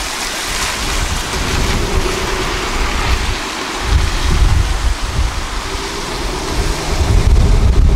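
Heavy wind noise on the microphone: a steady rush with low buffeting gusts, one about four seconds in and a stronger one near the end.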